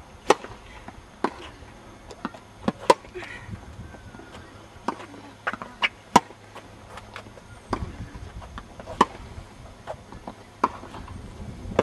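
Tennis ball being struck by racquets and bouncing on the court during a rally: about a dozen sharp pops at uneven spacing, the loudest near the start, about three seconds in and about six seconds in.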